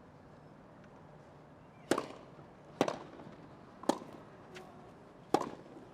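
Tennis rally: a ball struck back and forth by rackets, four sharp hits about a second apart, with a faint knock between the last two.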